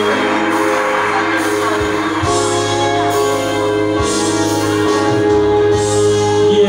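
Song music played loud over a bar's sound system, with long held notes over a steady bass line, and a singer on a handheld microphone.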